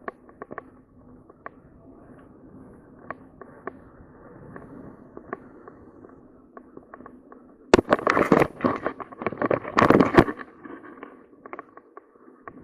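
Mountain bike riding a dirt singletrack, heard through an on-bike action camera: a low steady hum with scattered rattles and clicks, then a loud stretch of dense clattering from about eight to ten seconds in, typical of the bike and camera mount shaking over rough ground.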